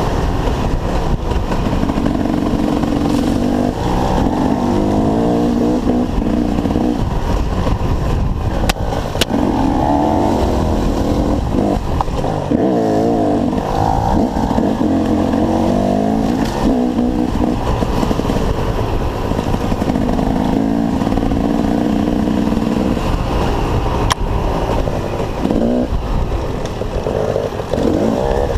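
Dirt bike engines revving up and down over and over, the pitch rising and falling in repeated surges, with a few sharp clacks.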